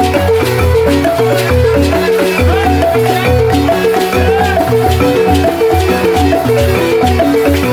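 Senufo balafon played fast: a rapid stream of short mallet-struck notes on the wooden keys over a low repeating bass pattern.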